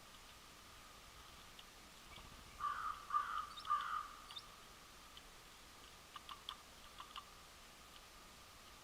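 A bird gives three short, hoarse calls in quick succession. A few seconds later come a handful of sharp clicks.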